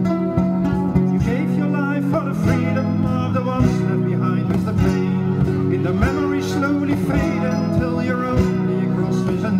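Live acoustic band music: plucked guitar and kora over a steady cajon beat, in an instrumental passage.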